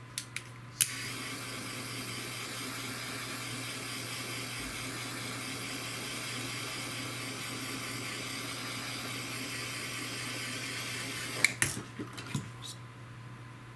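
Handheld butane torch: a few clicks as it is lit, then a steady hiss for about ten seconds while its flame shrinks heat-shrink tubing over a spliced cord, ending suddenly with a few clicks as it is shut off.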